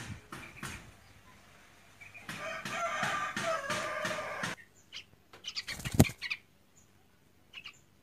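A fledgling bird tangled in twigs, struggling and flapping its wings. A loud stretch of flapping with harsh calls lasts about two seconds in the middle and cuts off suddenly. It is followed by a few sharp knocks, the loudest about six seconds in.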